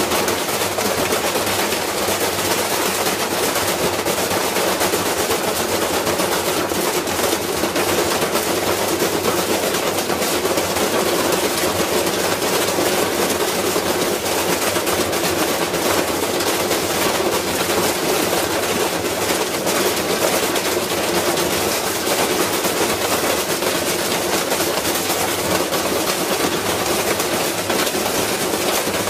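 Washing machine spinning with a brick inside, the badly unbalanced load banging and rattling the machine in a rapid, unbroken clatter that keeps steady throughout.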